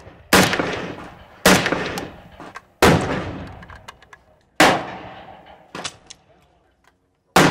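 Small-arms gunshots on an outdoor range: five loud shots at irregular gaps of one to two seconds and a fainter one between them. Each shot fades out in a long echoing tail.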